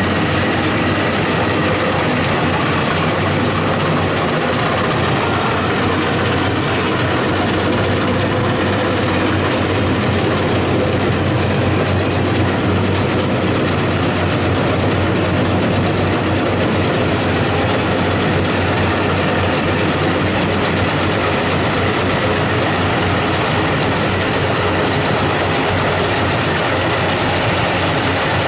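Rice combine harvester running steadily, its engine and machinery giving a loud, even mechanical noise throughout.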